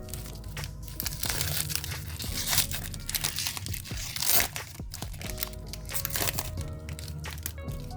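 Foil wrapper of a Pokémon card booster pack crinkling and tearing in irregular bursts as it is pried and ripped open, over steady background music.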